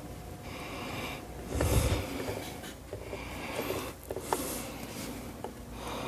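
A man breathing audibly near the microphone, a slow breath about every three seconds, with a few faint clicks.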